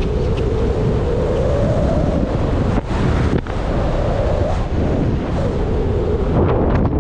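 Wind buffeting the microphone of a rider on a fast-moving electric scooter, over a droning hum that rises and then falls in pitch. There are two brief dips about three seconds in and a few sharp clicks near the end.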